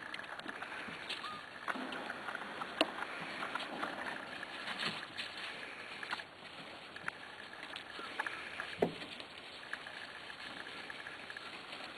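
Corgi puppies moving about: scattered light clicks, knocks and scuffles, with a faint short squeak about a second in and another brief one near the end.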